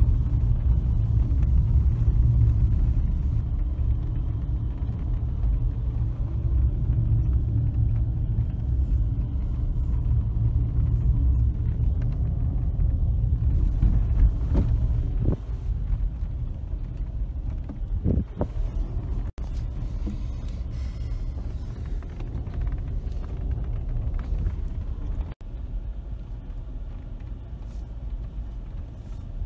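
Steady low rumble of a car driving, heard from inside the car. It gets a little quieter about halfway through and cuts out for an instant twice.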